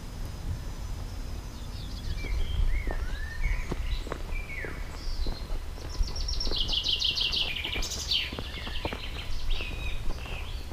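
Songbirds singing outdoors: a string of short sweeping whistles and chirps, with a rapid trill of repeated notes in the middle, over a low steady rumble and scattered faint clicks.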